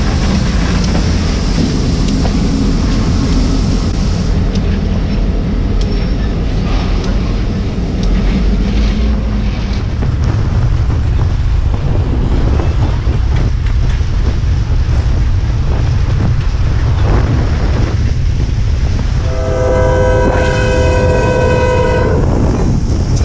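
Freight train passing close by: diesel-electric locomotives running with a steady engine hum, then freight cars rumbling and clacking along the rails. Near the end, a locomotive air horn blows one long chord for about three seconds.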